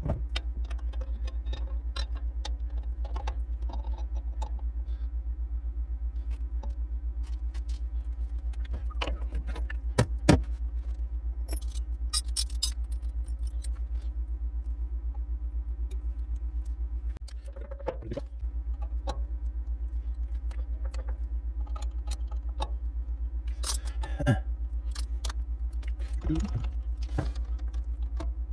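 Metal parts and tools clinking and knocking as a rifle barrel is set into a lathe's spider and bushings, with sharper knocks about ten seconds in and again near the end, over a steady low hum.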